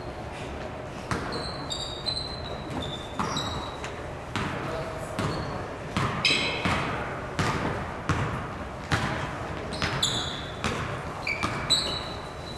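Basketball bouncing on a wooden gym floor during play, a string of sharp bounces, mixed with short high sneaker squeaks and players' voices, echoing in a large hall.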